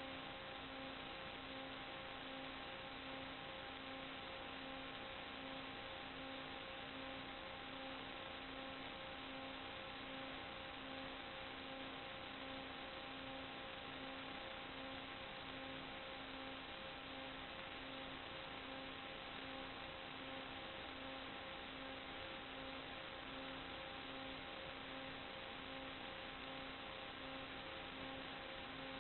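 Steady hiss from an FPV video link's audio channel, with electrical hum in several steady tones and a low buzz that pulses about one and a half times a second. No motor or propeller sound comes through.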